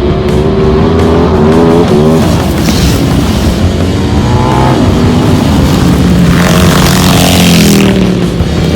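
Motorcycle engine revving: the pitch climbs twice, then falls away, with a burst of hiss about seven seconds in.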